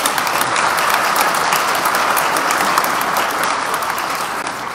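Congregation applauding: many hands clapping at once in a dense patter that swells at the start and begins to fade near the end.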